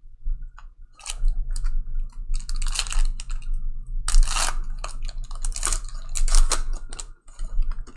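Trading cards and their foil pack wrapper being handled, giving irregular crinkling, rustling and clicking over a low steady hum.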